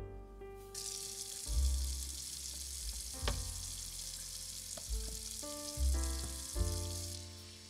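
Hot oil sizzling steadily as food fries, starting about a second in and falling away near the end, heard over background music with sustained keyboard notes and bass.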